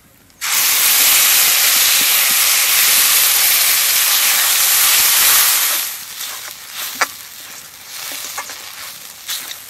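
Wet ground spice paste hitting hot oil in a kadai: a loud sizzling hiss bursts up about half a second in and holds for about five seconds. It then dies down to a quieter sizzle as the paste is stirred, with a few spatula scrapes and knocks on the pan.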